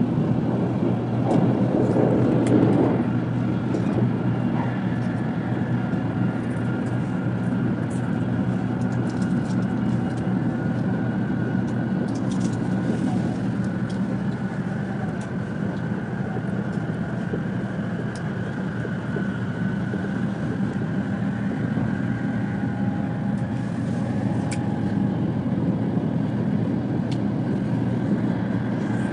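Steady running noise inside a carriage of an N700 Shinkansen at speed: a continuous low rumble from the wheels and track, with a faint high whine held steady above it.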